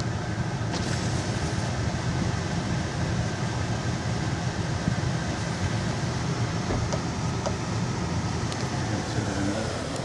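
Steady road and engine noise of a moving car, heard from inside the cabin, with a few faint ticks between about seven and nine seconds in.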